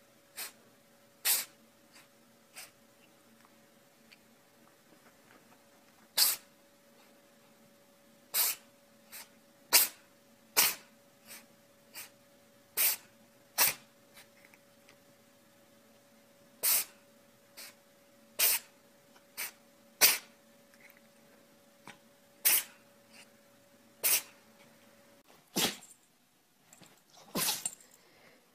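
A pet sneezing over and over: about twenty short, sharp sneezes, spaced roughly a second or so apart, over a faint steady hum that stops near the end.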